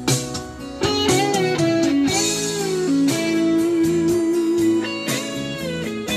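Instrumental break of an Isan-dialect Thai pop song: a plucked-string lead plays bent, wavering notes over a steady beat, with no vocals.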